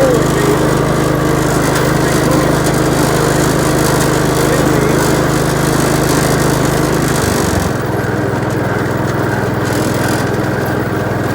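Kohler small engine of a Gravely walk-behind tractor running steadily after a restart, then settling to a lower speed about seven seconds in.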